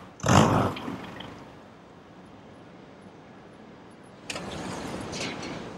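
Car engine noise as a car is manoeuvred into a parking space. There is a short, loud burst about a quarter second in that dies away, quieter running after it, and a sudden rise of steady car noise about four seconds in.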